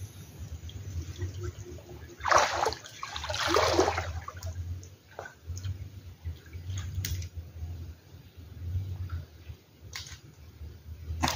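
Floodwater sloshing and splashing around a person wading knee-deep, with two loud splashes about two and three and a half seconds in, then scattered small splashes and drips.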